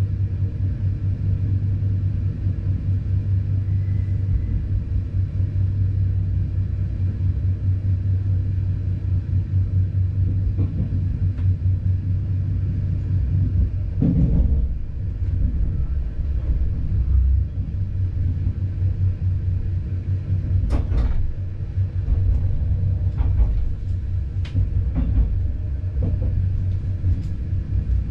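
Regional diesel train heard from the driver's cab at speed: a steady low running rumble and hum, broken by sharp clacks of the wheels over rail joints or points, one about halfway through and a quick cluster a few seconds later.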